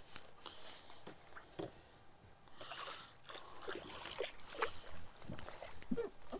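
A hooked fish splashing and thrashing at the water's surface beside a boat, in irregular bursts with scattered clicks and knocks.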